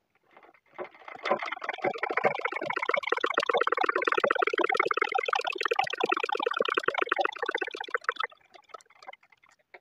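Domestic straight-stitch sewing machine running, a rapid steady mechanical clatter of the needle and feed as it sews a test seam, with the upper-thread tension freshly tightened to cure looped stitches. It starts about a second in and stops shortly after the eight-second mark, leaving a few faint clicks.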